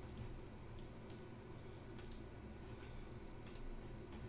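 Faint, scattered computer mouse clicks, about half a dozen over a few seconds, over a low steady hum.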